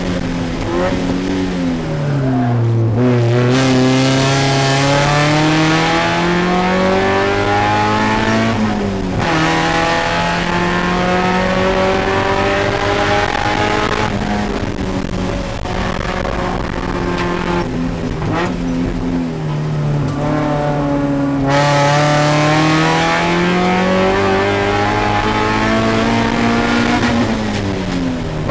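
Spec Miata race car's four-cylinder engine under hard driving, heard from inside the cabin. The revs fall early on, climb to an abrupt drop at a gear change about nine seconds in, and climb again. They sag and fall again partway through, then rise once more to another shift near the end.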